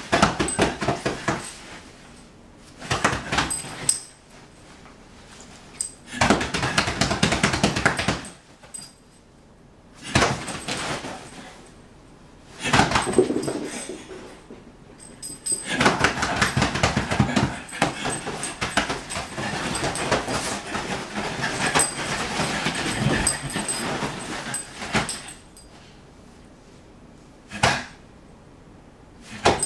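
Whippet puppy making dog noises in rough play with a person on a bed, in repeated bursts of a second or two and one long stretch of several seconds in the middle.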